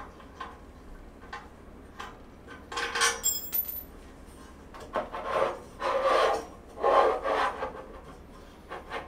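Steel dresser frame parts scraping and knocking as a side post is pulled out and turned: a few short scraping rubs, with light clicks between and a brief metallic ring about three seconds in.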